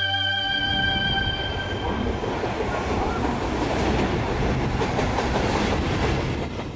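JR Freight EF210 electric locomotive and its container wagons passing close by, with a dense, steady rumble of wheels on rail that drops away at the very end. Background music fades out during the first two seconds.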